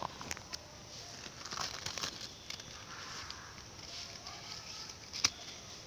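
Paper credit-card mailer envelope being handled and opened by hand: soft paper rustling with scattered light clicks, and one sharper click about five seconds in.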